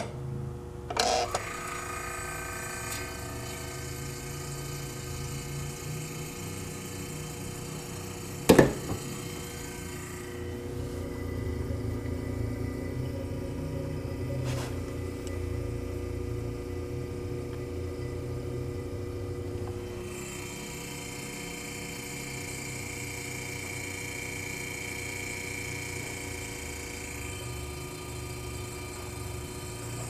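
GE Monitor Top DR-1 refrigerator's sealed compressor unit starting up and running with a steady hum, after hours of its heater warming the unit. There is a sharp click about eight seconds in.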